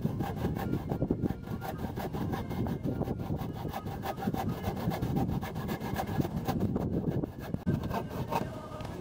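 Hand saw cutting with quick, steady back-and-forth strokes into the old boards at a roof eave, with a brief pause about three-quarters of the way through.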